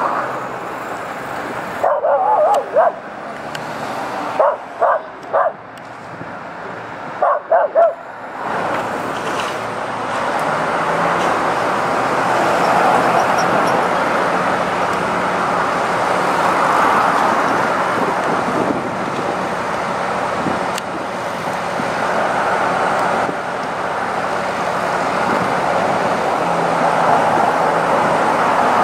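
A dog barks in three short bouts over the first eight seconds. After that a truck engine runs steadily.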